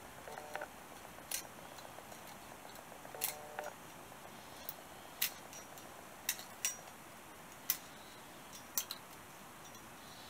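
Steel straight edge and feeler gauge being handled on a cylinder head's face while it is checked for warpage: scattered light metallic clicks and ticks, about nine at irregular intervals, with a couple of brief squeaks.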